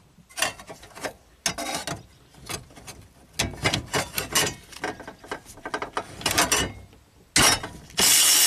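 Cordless electric ratchet run in a series of short trigger bursts, loosening bolts on a hybrid car's battery pack, with a longer, louder run near the end.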